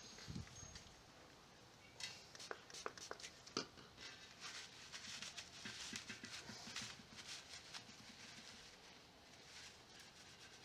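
Faint rubbing of a cloth wiping a metal dirt bike rim around a hole with isopropyl alcohol, with a few light clicks and knocks of handling about two to four seconds in.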